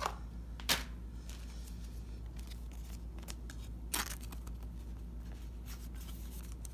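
Brief sharp crinkles of a plastic penny sleeve as a trading card is slid into it: one at the start, one under a second in and one about four seconds in, with a few faint ticks near the end. A steady low hum runs underneath.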